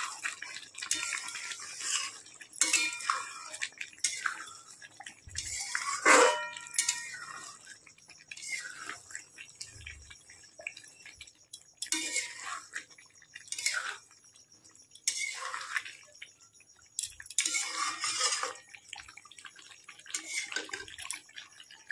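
A metal spatula scraping and stirring chicken pieces in gravy in a large metal karahi, in irregular strokes every second or two. A sharper clank of metal on metal comes about six seconds in.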